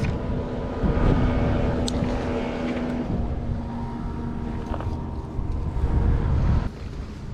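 Steady engine drone with several held tones over a low rumble; it drops off suddenly near the end.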